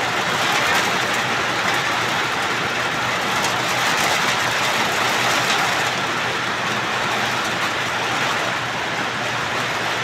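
Heavy rain pouring steadily onto corrugated metal roofs and trees, a dense, even hiss.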